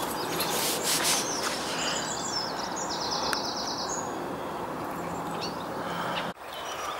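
Small birds chirping over a steady outdoor background hiss, with a quick rapid trill about three seconds in. The sound breaks off abruptly near the end.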